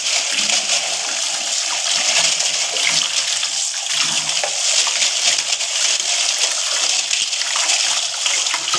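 Tap water running steadily and splashing over a broom of cut plastic-bottle strips and into a plastic basin below as the broom is rinsed clean.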